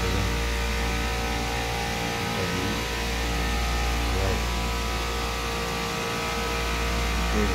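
Steady machine-room drone of a commercial refrigeration rack system's running compressors: a low hum with several steady tones above it. The low hum weakens briefly twice.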